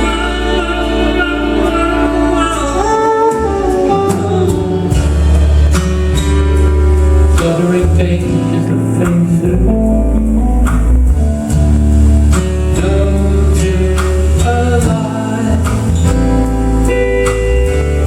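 Live band playing a song: singing over guitars and bass, with regular drum hits.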